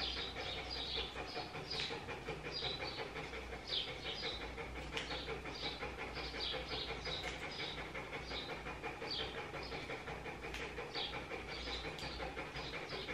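Grooming scissors snipping through a Maltese's coat, about two crisp snips a second in short irregular runs, over a steady background hum.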